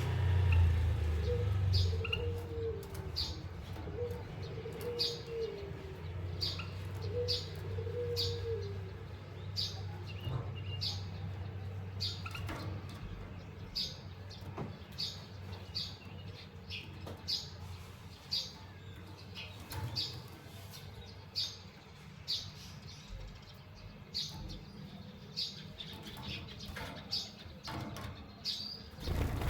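Small cage birds chirping: short, high call notes repeated about once or twice a second. A low wavering, coo-like sound is heard in roughly the first third.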